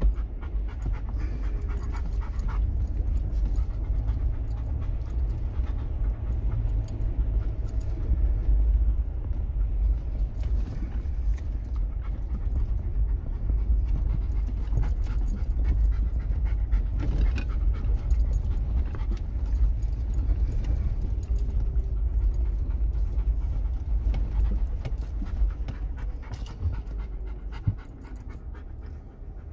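Cabin sound of a Jeep Wrangler Rubicon crawling over a bumpy, snowy off-road trail: a steady low engine and drivetrain rumble with frequent rattles and knocks from the jolting. A dog pants close by in the cabin.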